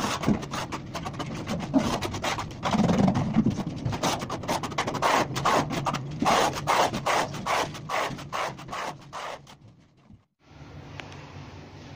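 Steel notched trowel scraping and combing cement tile adhesive across a wall in quick repeated strokes. The scraping stops about ten seconds in, and only a faint steady background follows.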